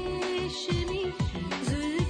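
Background film music in an Indian film style: a held tone over a beat of low drum hits.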